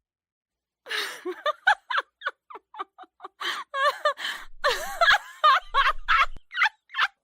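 A young girl laughing: after about a second of silence, short high-pitched giggling bursts come in quick runs, then build into longer peals of laughter.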